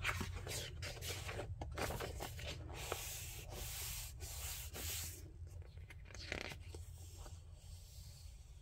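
Paper rustling and rubbing as a softcover sticker activity book is opened and hands smooth its pages flat. There are scattered crisp paper strokes and a sustained rubbing in the middle, easing off about six seconds in.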